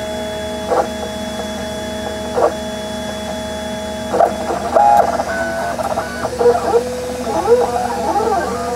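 Stepper motors of a Prusa i3 MK2S 3D printer whining as the print head moves through a print. For about four seconds a steady whine is broken by two short blips; then come rapidly changing tones that slide up and down as the moves speed up and slow down.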